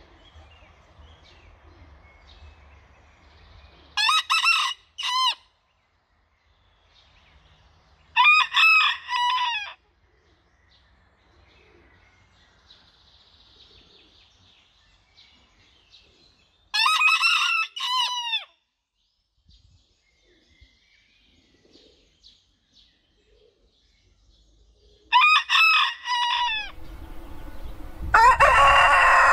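Rosecomb bantam roosters crowing: four short, high-pitched crows several seconds apart, with quiet between. Near the end a larger Sundheimer rooster gives a louder, lower-pitched crow.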